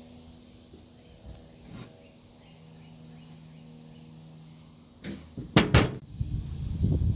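A faint steady hum, then about five seconds in two or three sharp, loud knocks close together, followed by rough clattering handling noise.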